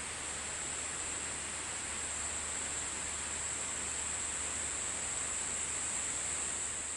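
Steady outdoor ambience: an even hiss with a continuous high-pitched ring on top, unchanging throughout.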